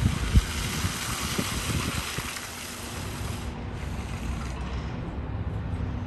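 Steady low rumble of construction machinery, with a couple of knocks near the start and a hiss that fades about halfway through.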